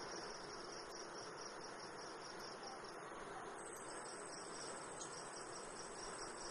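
Quiet, steady background noise with a faint high-pitched drone running through it. No distinct handling sounds stand out.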